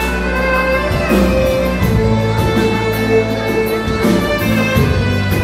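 Instrumental wedding music with a violin melody over held bass notes, played through the hall's loudspeakers.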